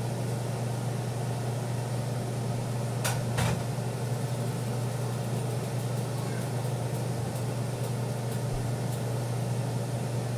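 Steady low hum of a running kitchen appliance or fan, with two short knocks about three seconds in.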